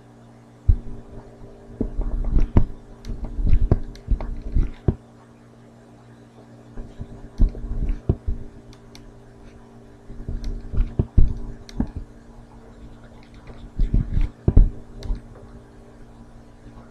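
Stylus tapping and sliding on a writing tablet while points are plotted and a curve is drawn: irregular clusters of dull knocks and clicks, over a steady low electrical hum.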